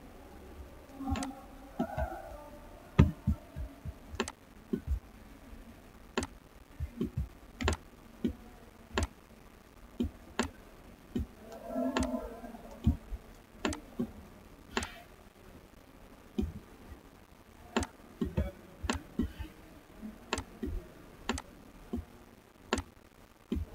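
Irregular sharp clicks and taps, roughly one or two a second and uneven in strength, as notes are handwritten onto a screen; one louder click comes about three seconds in.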